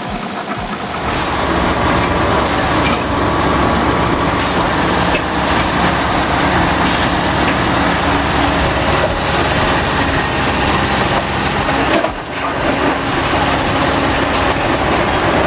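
Heavy diesel machinery, an excavator type, running loudly and steadily. It dips briefly about three quarters of the way through.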